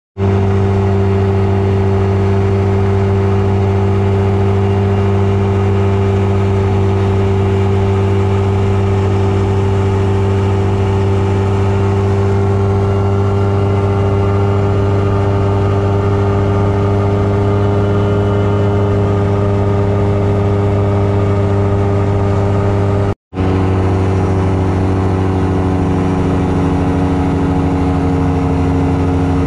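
Microlight aircraft engine and propeller droning steadily in cruise, heard from inside the cockpit. It cuts out briefly about three-quarters of the way through and resumes at a slightly different pitch.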